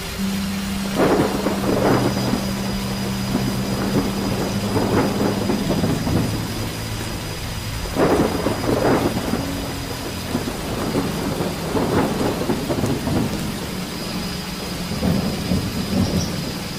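Thunderstorm sound effect: steady heavy rain with rolls of thunder breaking in again and again, a few seconds apart. A steady low hum runs underneath.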